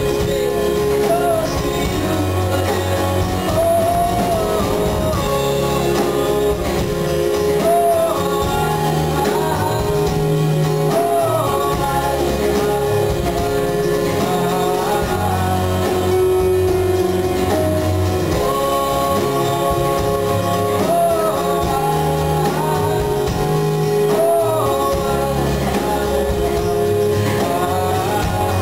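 A live pop song: a man sings lead while playing an electric keyboard, with band accompaniment.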